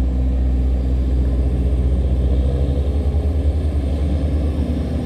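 Boat diesel engine running steadily under load, a deep continuous rumble.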